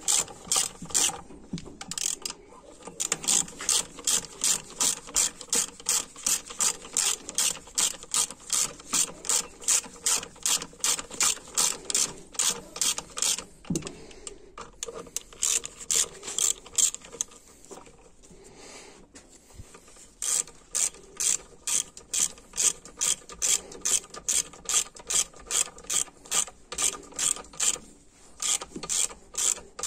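Hand ratchet with a 14 mm socket clicking as it runs down bolts on the transmission case, a steady back-and-forth about two strokes a second, with a short pause a little past halfway.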